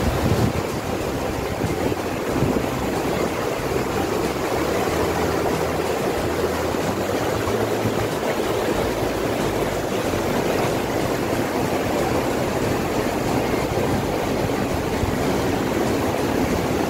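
The Jaldhaka River rushing over boulders in shallow rapids: a steady, even roar of white water.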